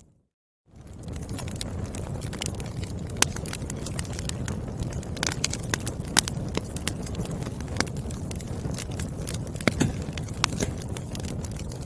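Wood fire crackling in a fireplace: a steady low rumble of flames with frequent sharp pops and snaps from the burning firewood. It drops out to silence for about half a second at the start, then fades back in.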